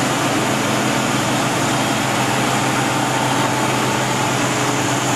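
Van de Graaff generator's small electric motor running steadily, spinning the belt and rollers: a constant hum with an even whir over it.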